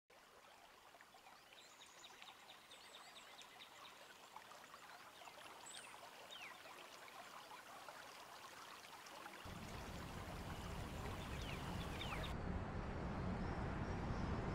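Outdoor ambience of flowing water, a steady rush with many short bird chirps over it. About two-thirds of the way through, a low rumble comes in and the sound grows louder.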